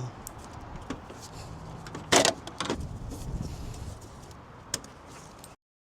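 Handling noises at a car's headlight housing: scattered plastic clicks and a sharp clatter about two seconds in, with smaller knocks after it, as the old halogen low-beam bulb and its connector are worked loose. The sound cuts off suddenly near the end.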